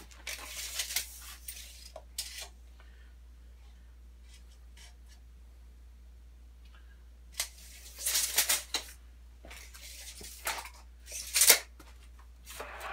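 Metal parts of a miter saw stand being handled and adjusted: sliding and rattling with clicks in several short bursts, the sharpest click about eleven and a half seconds in.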